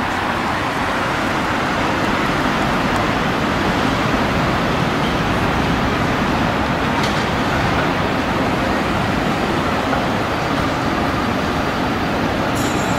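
Steady road traffic noise, an even hum of passing cars, while a tram approaches slowly on street track.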